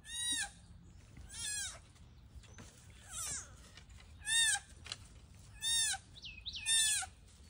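A deer fawn bleating: six short, high calls that rise and fall in pitch, about one to one and a half seconds apart. It is a fawn calling for its mother.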